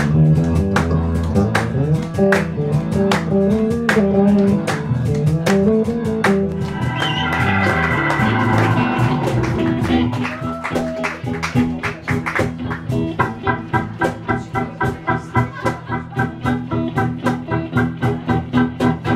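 Live blues band playing: a prominent electric bass line over a steady drum beat in the first half, then from about two-thirds in, an organ from a Nord C2 keyboard comes to the front with fast repeated chord stabs.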